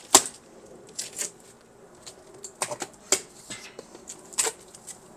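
A cardboard shipping box being cut open with a knife: the blade slitting the packing tape and the flaps scraping and crackling as they are pulled back. It comes as a string of short, sharp scrapes and cracks, the loudest right at the start.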